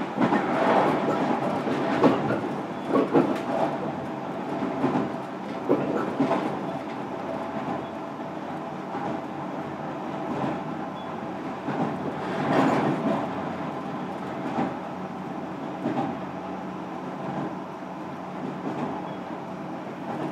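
Interior running sound of a JR Kyushu 305 series electric train, heard from inside a motor car: wheels on rail at a steady pace, with irregular clacks over rail joints, several in the first few seconds and one loud one about 12 seconds in. Under them are steady tones from the Toshiba permanent-magnet synchronous motor (PMSM) traction drive.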